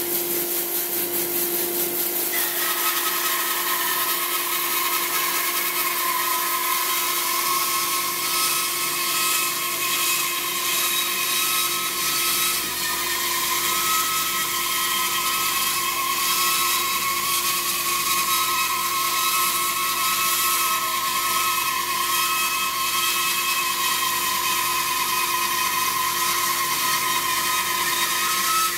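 An 18-inch Jet bandsaw resawing a small log held in a sliding jig, its motor and blade running steadily. A higher whine from the blade cutting the wood joins about two seconds in and holds for the rest of the cut.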